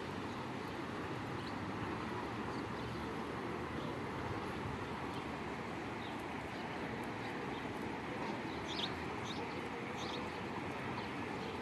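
Steady outdoor background noise, with a few short, high bird chirps about three quarters of the way through.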